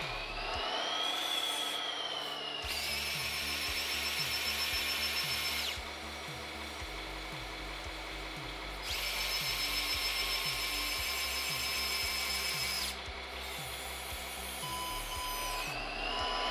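Electric linear actuators of a 3D-printed RC wheel loader whirring as they move the loader arm and bucket, in two steady runs of about three and four seconds. A short motor whine rises and falls in pitch about a second in. Background music with a steady beat plays underneath.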